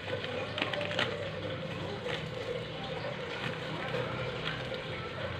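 Steady low noise of a pan of coconut milk and spice paste heating on the stove, with a couple of light clicks about half a second and a second in.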